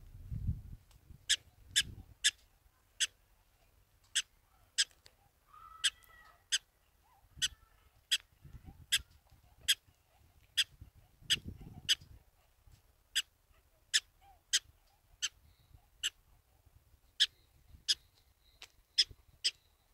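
Black-tailed prairie dog barking: a long run of short, sharp yips, about one to two a second with a few brief pauses. It is the repeated alarm bark that a prairie dog gives at an intruder, here an agitated one.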